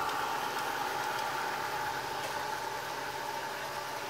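Model diesel locomotive running along the track at a steady pace, pulling a train of freight cars: a steady mechanical running sound with a whine of several held tones. It eases slightly near the end as the locomotive pulls away.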